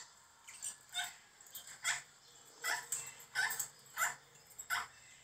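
Faint, repeated short high-pitched animal calls, roughly one every half second to a second.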